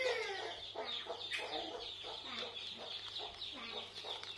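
A string of short animal calls, several a second, right after a longer pitched call that falls away at the very start.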